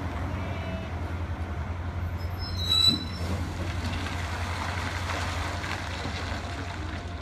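Meitetsu electric train running on the line: a steady low rumble, with a brief high-pitched squeal a little under three seconds in.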